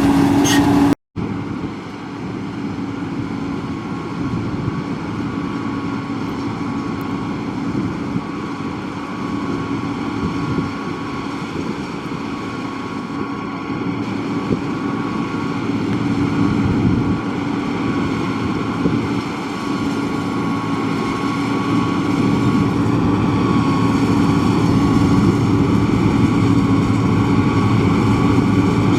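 Combine harvester running steadily while harvesting soybeans: a constant engine hum with a thin steady whine above it. It cuts out briefly about a second in, then comes back and grows slightly louder toward the end.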